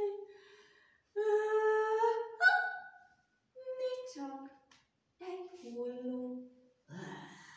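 A voice singing or humming a short wordless tune in a few held notes that step up and down in pitch, with short pauses between phrases.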